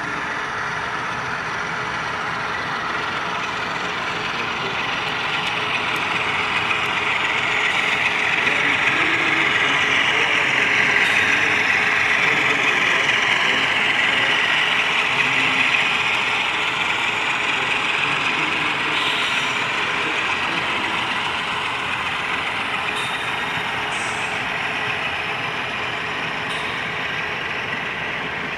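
HO scale model train with diesel locomotives running along the track: a steady whirring rumble that grows louder as the locomotives pass close by and then fades, with a few faint clicks.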